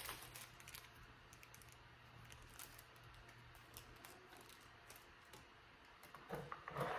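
Near silence with faint, scattered light clicks of small accessories and packaging being handled, and a brief louder handling noise near the end.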